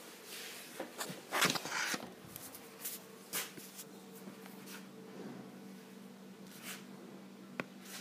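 Handling noise as the camera is picked up and moved: rubbing and shuffling, a louder rustle about a second and a half in, and a few sharp clicks, over a faint steady hum.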